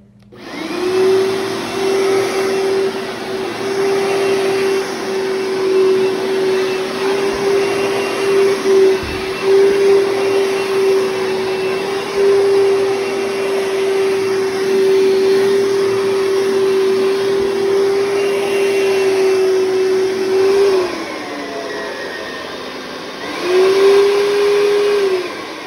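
Oreck Magnesium upright vacuum cleaner switched on just after the start and running steadily with a strong motor hum over the rush of air. About 20 seconds in, the motor pitch and loudness drop; it rises back up a few seconds later and drops again near the end.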